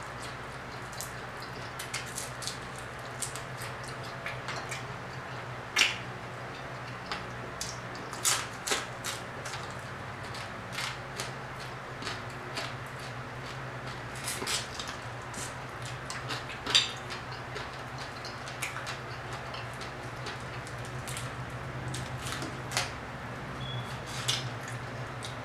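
Close-up eating of crispy fried croaker fish by hand: scattered sharp crunches and clicks as the fried skin and bones are picked apart and chewed, over a steady low hum.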